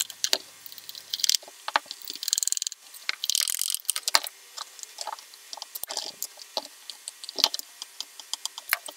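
Rapid rubbing strokes of a wooden burnisher inside a dampened leather belt slot, in two short spells in the first half. Scattered clicks and knocks follow as the leather holster is handled and pressed around a plastic gun mold.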